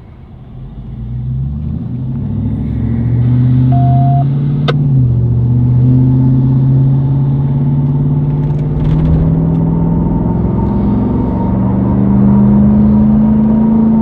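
Car engine heard from inside the cabin, accelerating away from a stop. The engine note climbs for a few seconds, drops suddenly about five seconds in as the transmission shifts up, then climbs slowly again. There is a single sharp click just before the shift.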